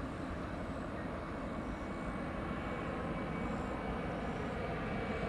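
Distant Embraer E175 jet airliner on final approach: its GE CF34 turbofans make a steady rumble with a faint high whine, growing slowly louder as it nears.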